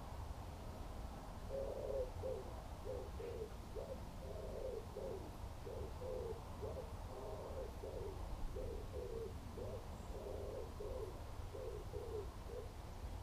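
A pigeon cooing: a long run of short, low notes in repeated phrases, starting about a second and a half in and stopping shortly before the end.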